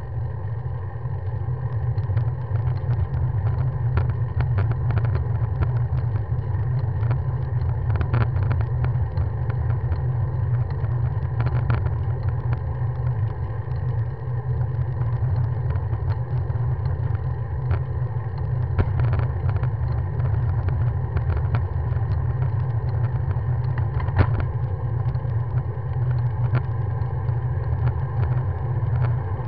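Steady low rumble of wind and road vibration on a handlebar-mounted camera of a moving bicycle, with a few faint clicks.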